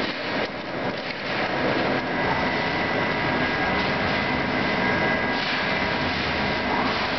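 Metal lathe turning a spinning metal bar under flood coolant: spindle running, coolant spraying and the tool cutting, a steady noise with a faint high whine.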